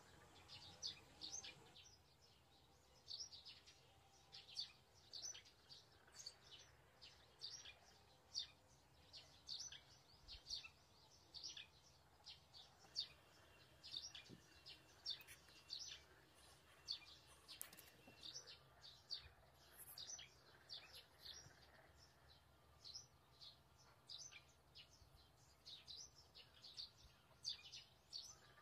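Birds chirping faintly: many short, high chirps repeating a couple of times a second, over quiet room tone.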